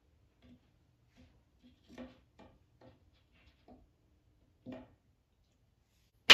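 Faint light knocks and taps of particleboard furniture panels being handled and fitted together on wood dowels, about a dozen scattered through, ending in one sharp, loud smack as the panels are brought together.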